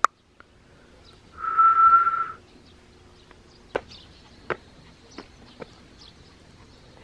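A person whistles one steady note for about a second, calling a small dog, followed by a few light clicks and taps.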